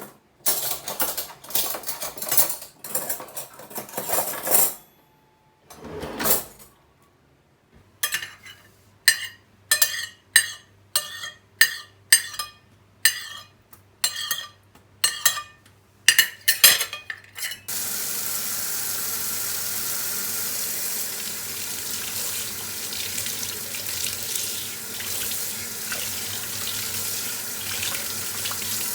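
Cutlery clattering against dishes, then a spoon scraping food scraps off a plate in repeated strokes, about two a second. About two-thirds of the way through, a kitchen tap is turned on and water runs steadily into the sink.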